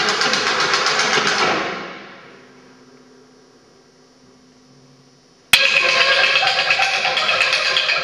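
Rapid, dense clattering percussion in a contemporary piano-and-percussion piece: a fast rattle of sharp strokes that dies away about two seconds in, a lull with only a faint low hum, then a second burst that starts abruptly about five and a half seconds in.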